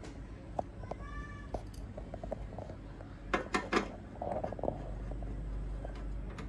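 Metal clicks and knocks as a steel retaining bracket is worked into place on a photocopier's rear frame, with a sharp cluster of clicks past the halfway mark. A short high-pitched squeal sounds about a second in.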